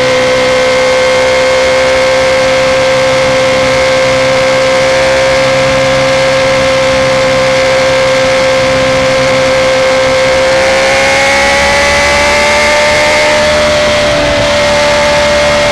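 Motorcycle engine held at steady high revs, its pitch nearly constant and rising a little about two-thirds of the way through.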